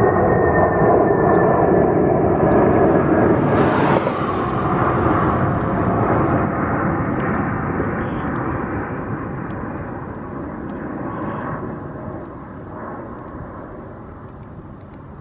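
Boeing 747-400 on final approach flying past, its four jet engines running loud with a whine whose tones slowly fall in pitch. A brief rush of noise comes about four seconds in, then the sound fades steadily as the jet moves away toward the runway.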